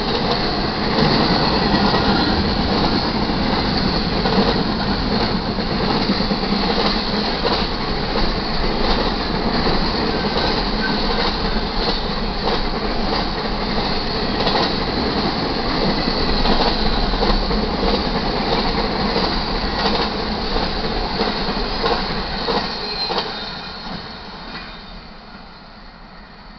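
Intermodal freight cars rolling past at speed, a dense rumble of steel wheels on rail with repeated wheel clacks. The noise fades about 23 seconds in as the end of the train passes.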